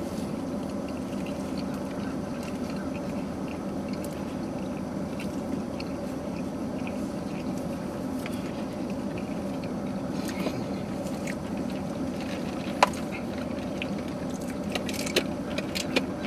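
Steady hum inside a parked car's cabin, with scattered small clicks and knocks from food and drink cups being handled; one sharper click about thirteen seconds in, and a few more near the end as a drink is sipped through a straw.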